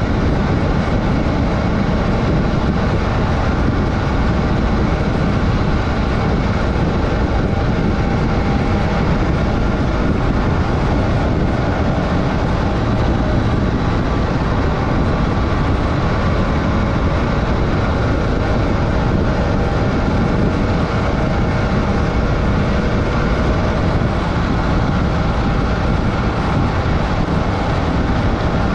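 Adventure motorcycle riding along a dirt road: the engine runs steadily under a heavy, even rush of wind and road noise, with no change in pace.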